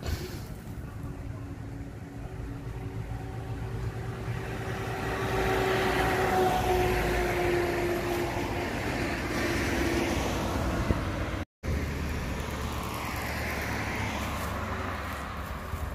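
A car driving past on an asphalt road, its engine and tyre noise swelling and then fading over several seconds with a slowly falling tone. After a brief dropout, steady road noise with a low rumble as another vehicle approaches.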